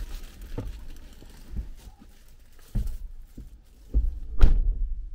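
Low thumps and knocks as a person climbs out of a car's driver's seat, then the driver's door slams shut with a loud thunk about four and a half seconds in, after which the sealed cabin goes quiet.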